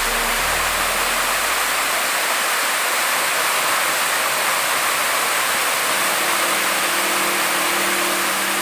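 Steady, even rushing noise, with the backing music's low notes fading out in the first couple of seconds and a low held tone coming in about six seconds in.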